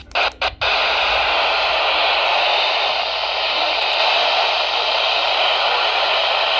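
Steady static hiss from a radio receiver, broken by two short dropouts in the first half second and then unbroken.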